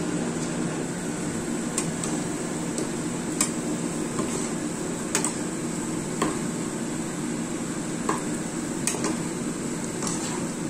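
Dough balls for luqaimat sizzling steadily as they deep-fry in hot oil, while a perforated metal skimmer stirs them and clinks against the pan about seven times.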